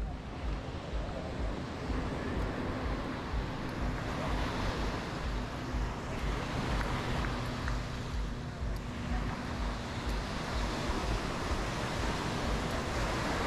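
Sea surf washing onto the beach in swells, with wind buffeting the microphone. A faint steady hum sits underneath for most of the time.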